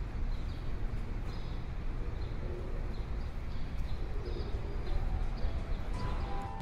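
Low steady background rumble with a faint short high chirp repeating about twice a second; a sustained musical tone comes in near the end.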